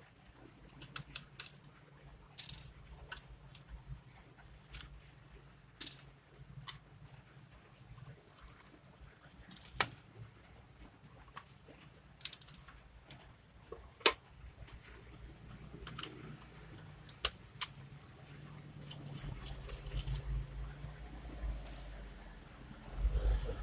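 Irregular clicks, taps and light rattles of small plastic and metal parts of a Lenovo G470 laptop being handled and pried apart during disassembly, some sharp and loud, others faint.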